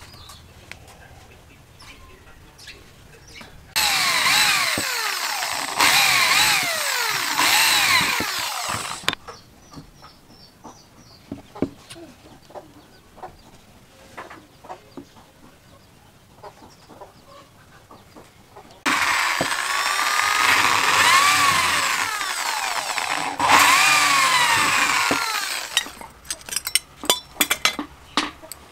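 Power drill running in two bursts of several seconds each, its pitch sliding up and down as it bores through the wooden knife handle under changing load. Sharp light metallic taps follow near the end as the handle pin is set.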